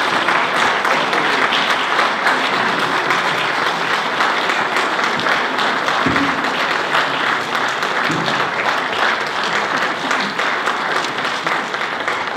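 Audience applauding steadily: many hands clapping at once for the cast at a curtain call.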